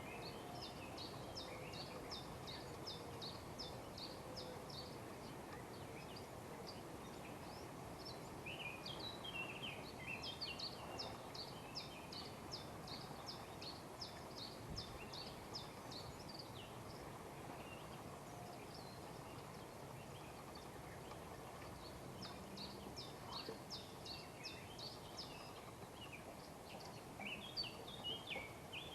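Songbirds singing: long runs of short high notes repeated about three or four times a second, with a few lower chirps, over a steady faint outdoor background hiss.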